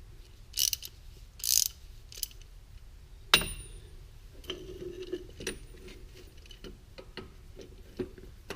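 Metal tool handling: scrapes and clinks of a socket being worked onto a car engine's oil pressure switch, with one sharp metallic clank about three seconds in and scattered lighter ticks after it.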